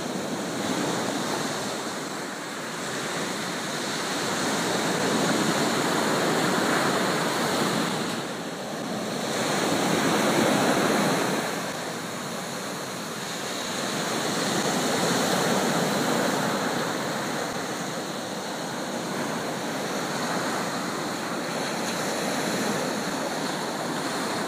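Ocean surf breaking and washing up a beach, swelling and easing every few seconds.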